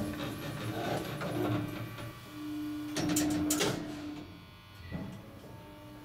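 Passenger elevator, modernised by Kone, closing its doors and starting down: the door operator hums on and off, two clunks come about three seconds in as the doors shut, then a click near five seconds and the car sets off with a quieter running hum.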